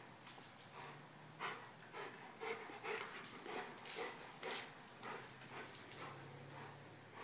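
Faint, irregular clicking and scuffing of a German shepherd's claws and paws on a concrete floor as he paces, still coming out of a grand mal seizure.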